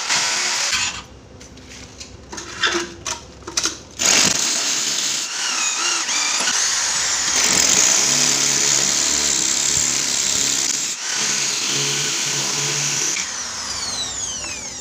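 Hammer drill boring anchor holes into the floor for a toilet's mounting bolts. It drills briefly at the start, pauses with a few short knocks, then runs in one long stretch from about four seconds in and stops near the end.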